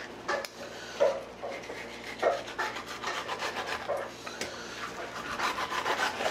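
Sashimi knife scraping along a sea bass fillet and the cutting board as the skin is cut away: a few separate rasping strokes, then a quicker run of short strokes.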